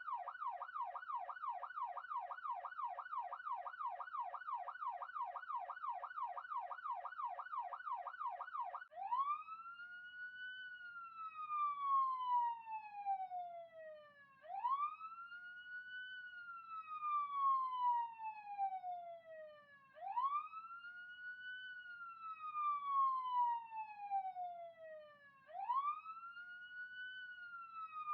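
Electronic police siren in its fast yelp, sweeping up and down about three times a second. About nine seconds in it switches to a slow wail, each cycle rising quickly and then falling slowly, about every five and a half seconds.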